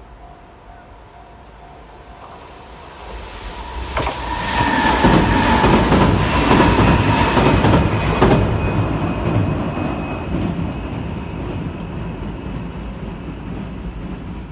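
Kintetsu Minami-Osaka Line train passing over a level crossing. It comes up loud a few seconds in, with wheels clacking over rail joints and a thin wheel squeal, then slowly fades away.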